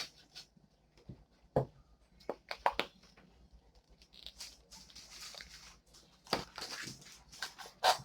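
Scattered clicks, taps and rustles of small objects and containers being handled, coming in short clusters, the busiest spell about six to eight seconds in.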